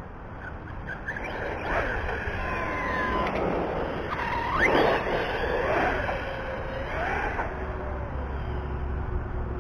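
Brushless motor and drivetrain of an RC truggy (Hobbywing Max6, 1650KV, on 6S) whining, the pitch rising and falling as it accelerates, passes close about five seconds in and speeds away.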